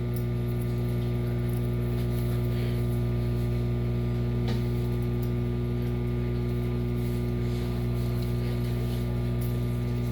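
Hamilton Beach 1000-watt microwave oven running on high with oatmeal cooking inside: a steady electrical hum, with one faint click about four and a half seconds in.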